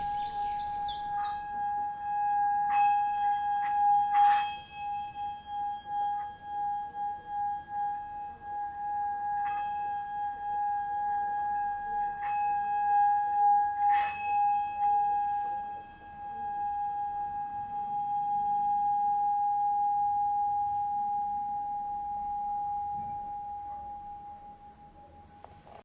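A singing bowl ringing with one steady tone, struck lightly several times in the first half so that the tone pulses and renews, then swelling smoothly and slowly dying away near the end. A few bird chirps in the first second.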